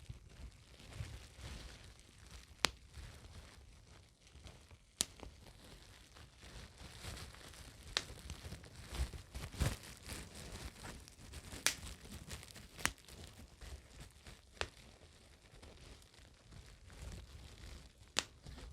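Bubble wrap being crinkled and squeezed, a steady crackly rustle with sharp single pops every second or two.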